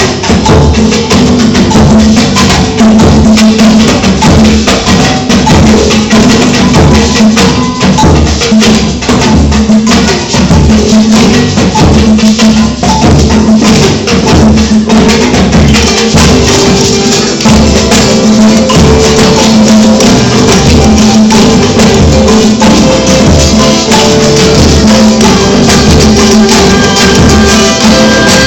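Percussion-driven music: tambourine and shaker-like rattles keep a steady, dense rhythm over a held low note.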